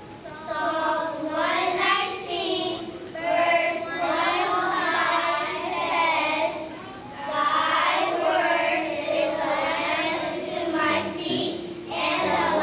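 A group of young children singing together without accompaniment, in phrases with short breaks between them.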